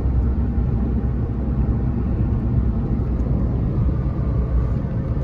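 Steady low rumble of a moving road vehicle: engine and road noise running evenly, with no change in pace.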